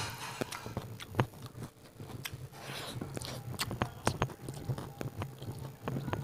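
Close-miked eating sounds: chewing with many short, sharp wet mouth clicks and lip smacks, as a mouthful of rice and chicken curry is eaten.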